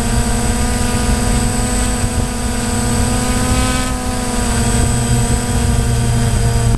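DJI Phantom quadcopter's electric motors and propellers whining steadily, heard close up from the GoPro mounted on the drone, with several tones at once that shift briefly in pitch around the middle.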